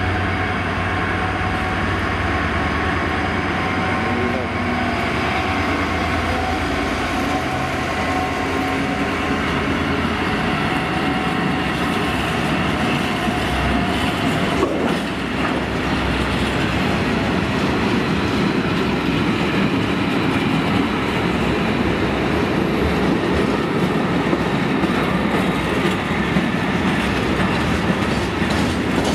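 A diesel-hauled freight train passing close by. The locomotive's engine drones low for the first several seconds, then a long rake of covered bogie wagons rolls past with a steady rumble and wheel clickety-clack. Sharp clicks come near the end.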